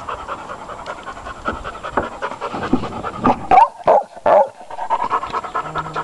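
Cocker spaniel panting rapidly and rhythmically, broken by three short, louder sounds about three and a half seconds in.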